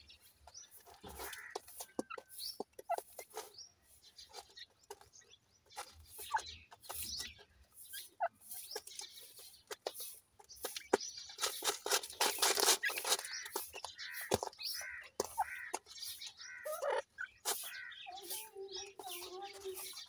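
Francolin hen and chicks calling: short, high chick cheeps scattered throughout with soft clucks, and a longer, lower call near the end.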